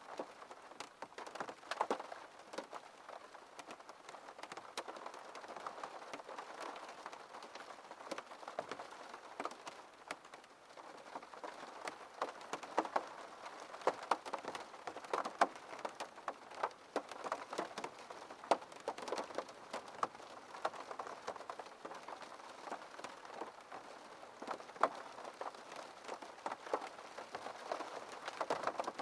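Rain striking a window pane: a steady hiss of rainfall with many separate sharp taps of single drops hitting the glass.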